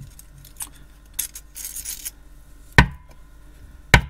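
Cheap plastic desoldering pump being unscrewed and pulled apart by hand: small clicks and plastic scraping, then two sharp clicks, about a second apart, near the end as the plunger and spring come out.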